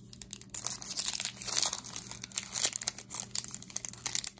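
Foil wrapper of a baseball card pack crinkling and tearing as it is pulled open at its crimped seam by hand. The crinkling starts about half a second in and runs as a dense, uneven crackle.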